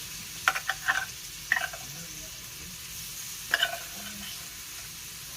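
Corned beef hash frying in bacon fat in a cast iron skillet, with a steady sizzle. A spatula clacks against the pan several times in the first two seconds and once more about three and a half seconds in, as the hash is broken up and stirred.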